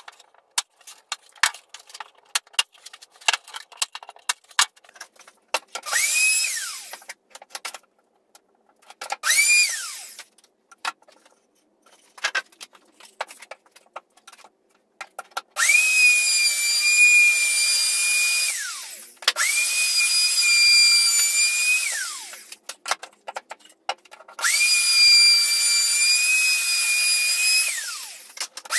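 A handheld wood router run in five bursts on a pine board: each time its motor spins up to a steady high whine and winds down again, the last three runs lasting three to four seconds each. Before it, a quick series of sharp clicks and knocks.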